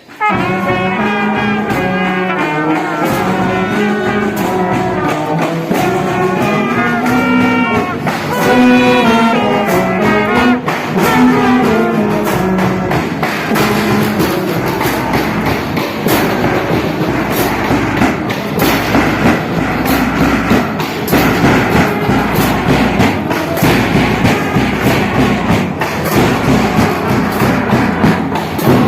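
A school band playing a tune, led by brass instruments, with a steady drum beat that becomes more prominent about halfway through.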